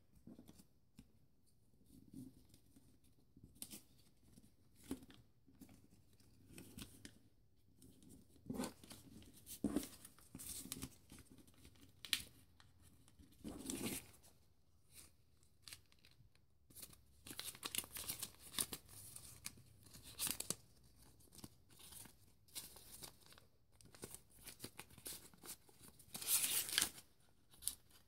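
Folded printer paper rustling and crinkling in short, irregular bursts as hands crease and slot together the units of a paper ninja star, with a few louder crackles along the way.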